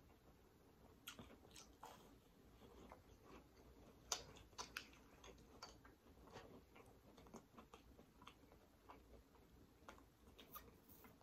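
Faint mouth sounds of a person chewing a bite of festival (Jamaican fried dough) with the mouth closed: scattered, irregular soft clicks and smacks.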